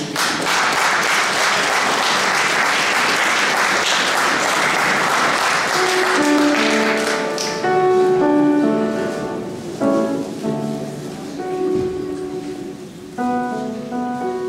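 Audience applauding for about seven seconds, then a piano introduction of separate notes begins, the accompaniment leading into the choir's song.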